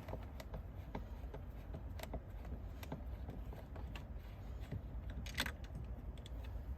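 Faint small clicks and scrapes of a Phillips screwdriver turning out the screw that holds a plastic door-trim piece, with one sharper click near the end.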